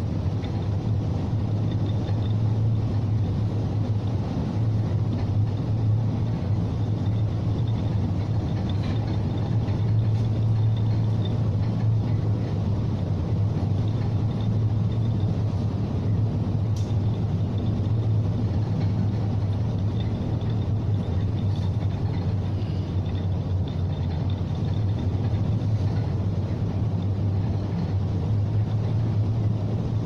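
Steady low drone of a bulk carrier under way at sea: the ship's engine and hull rumble, mixed with a rushing of wind and breaking sea along the hull.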